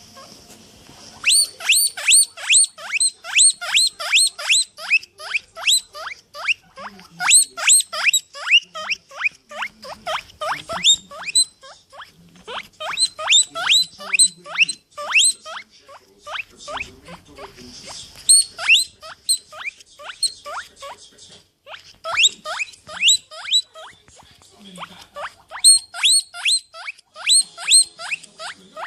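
An animal squeaking rapidly over and over, short high squeaks that drop in pitch, about four or five a second, in long runs with brief pauses between them.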